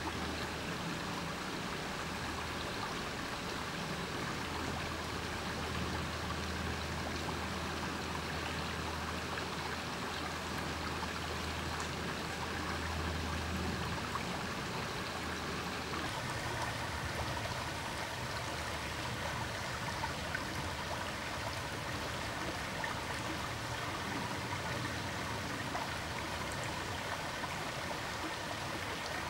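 Small stream running with a steady trickle and gurgle of water.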